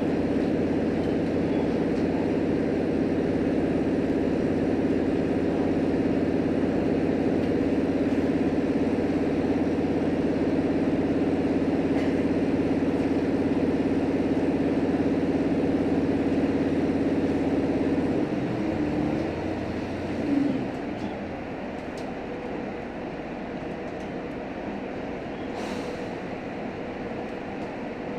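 Cabin sound of a JR Hokkaido H100 diesel-electric railcar under way: a steady engine drone with several level tones. About two-thirds of the way through it drops back, and the car runs on more quietly with rail noise and a few faint clicks, as it coasts with power off.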